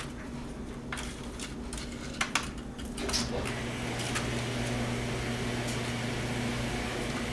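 Light taps and scuffs as kittens scrabble against a plastic milk crate on a concrete floor, with two sharper taps a little after two seconds. About three seconds in, a steady mechanical hum and whir starts up and runs on.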